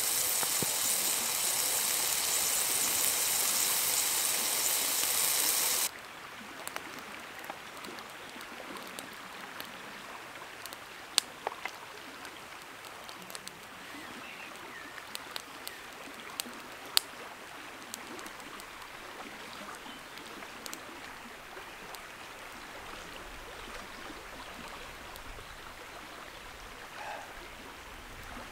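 A steady hiss from a pot cooking on a wood-fired hobo stove, cut off abruptly about six seconds in. Then quieter riverside ambience of flowing water, with a few sharp clinks of cutlery on a plate or mug.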